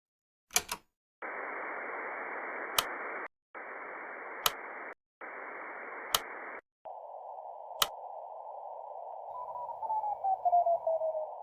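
Radio receiver hiss that cuts in and out three times with sharp clicks, then narrows to a CW-filtered hiss. In it a Morse code signal is tuned in, its keyed beat tone sliding down in pitch as the tuning moves.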